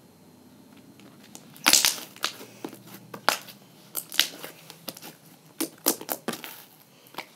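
Slime being squeezed and worked by hand, giving a run of irregular sharp pops and crackles that starts about a second and a half in.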